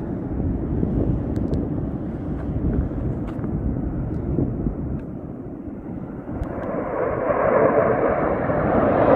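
F-15 fighter jet approaching at low level: a low rumble that grows steadily louder from about six seconds in, the sound spreading higher in pitch as the jet nears.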